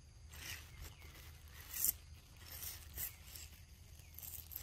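Macaques biting and tearing into a ripe yellow fruit: about five short, crisp tearing sounds, the loudest a little under two seconds in.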